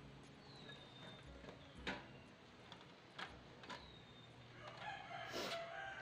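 A few light clicks of clear plastic CD-case pieces being handled and snapped together, with a drawn-out bird call in the background near the end.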